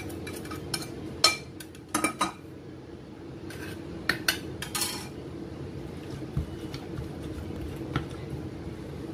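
Metal spoon clinking and scraping against bowls and plates at irregular intervals while spice pastes are combined: a few sharp, ringing clinks and softer knocks, with a steady low hum underneath.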